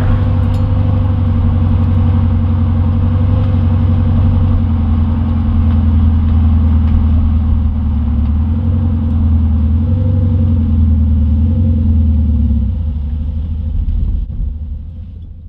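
Deep, steady engine-like exhaust rumble that comes in suddenly and fades out near the end.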